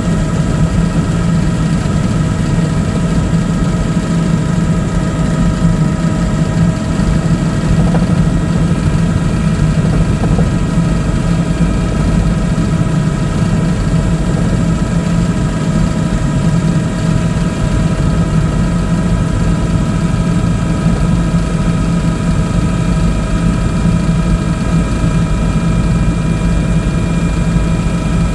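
Helicopter in flight heard from inside the cabin: a loud, steady drone of engine and rotor with several steady whining tones above it.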